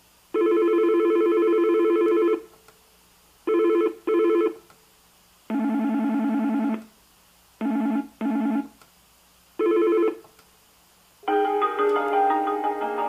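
Yealink T29G desk phone playing ring tone previews through its speaker as the ring tone list is stepped through. Six tones in turn, separated by short gaps: first five electronic trilling rings, some as double bursts, then a melodic tune from about eleven seconds in.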